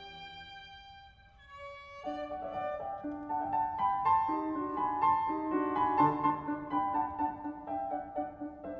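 A violin-and-piano phrase ends and rings away. Then the grand piano plays alone, a melody of separately struck notes, while the violin rests.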